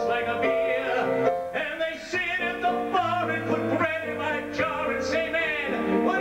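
Country-style music: a wavering melody line over bass notes that change about once a second.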